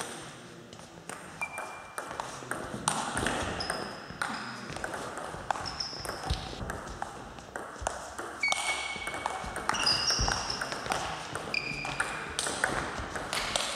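Table tennis rally: the celluloid ball clicks sharply off the bats and the table again and again, while the players' shoes squeak in short high chirps on the sports hall floor, more often in the second half.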